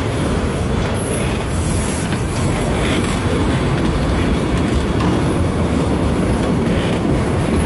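Canadian National freight train led by locomotive 8822 rolling past close by: a loud, steady rumble and clatter of wheels on rail.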